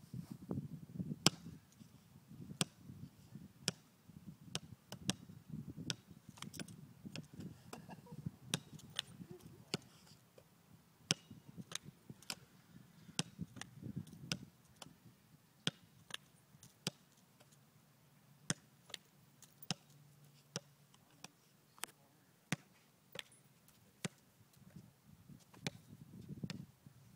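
A basketball being batted and bounced by a border collie at play: a long run of sharp knocks at an uneven pace, about one or two a second.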